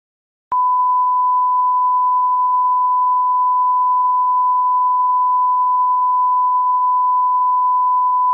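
Broadcast line-up test tone played with colour bars: one steady, loud pure tone that starts suddenly about half a second in, after dead silence, and holds unchanged.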